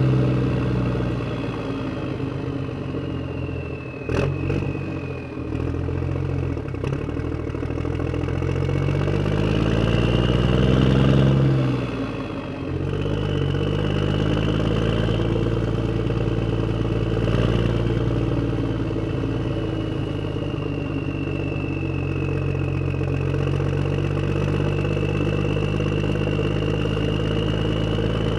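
A vehicle engine running, with a sharp clunk about four seconds in; it revs up steadily from about eight seconds, drops back at about twelve, then runs on at a steady speed.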